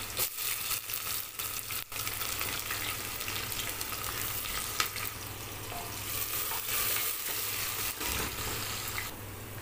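Sliced onions sizzling as they fry in hot oil in an open pressure cooker, browning as a gravy base. A wooden spatula stirs them, with a few sharp scrapes against the pot.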